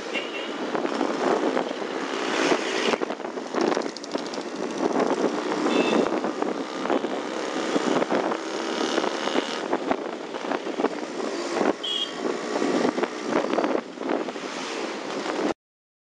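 Two-stroke motorcycle riding through city traffic: a continuous raspy engine note mixed with wind and road noise, with brief high toots about six and twelve seconds in. The sound cuts off abruptly just before the end.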